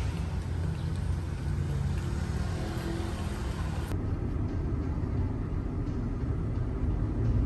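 An engine running steadily: a low, even rumble with a faint hiss over it.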